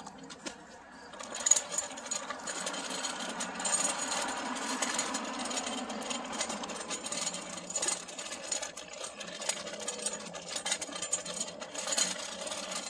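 Wheels of a child's bike rolling over a concrete sidewalk, a steady rattle that starts about a second in.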